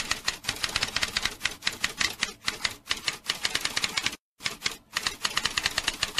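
Typewriter typing: a quick, uneven run of key clacks, with a brief pause a little past four seconds in.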